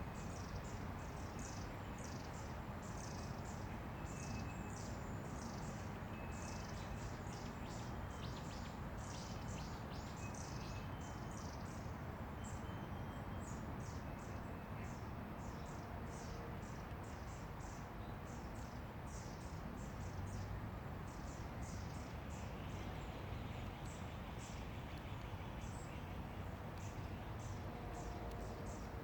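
Insects chirping in short, high-pitched pulses, about two a second, over a steady background hiss, with a few faint bird calls.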